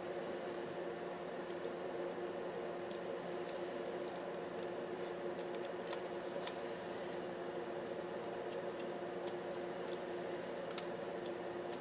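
Steady electrical hum with faint, scattered small clicks and ticks every second or so.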